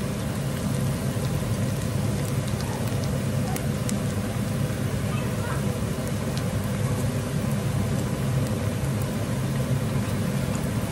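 Diced onion and garlic sizzling in sunflower oil in a wok, over the steady drone of a kitchen range hood fan, with a few light clicks of a spatula against the pan.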